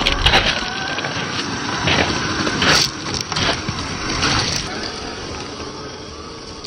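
Traxxas TRX-4 radio-controlled crawler driving over rough ground: irregular crunching and scraping of tyres on rocks and dirt, over a faint wavering motor whine, loudest in the first three seconds and fading towards the end.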